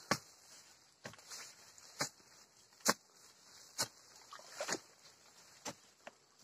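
A long iron digging bar jabbed again and again into soil and roots, each stroke a short sharp knock, about one a second, to pry an amplas tree out of the ground.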